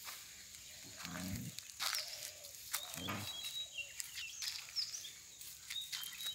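Birds chirping now and then in the background, with rustling clicks and two short low sounds, about one and three seconds in.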